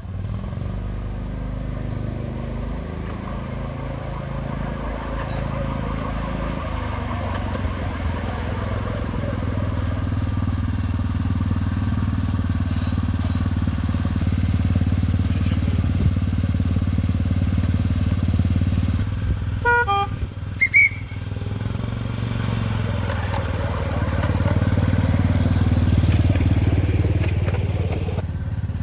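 A small engine running steadily, its pitch shifting up and down in the first few seconds and the sound growing louder later on. About twenty seconds in, a brief run of short high notes falls in pitch.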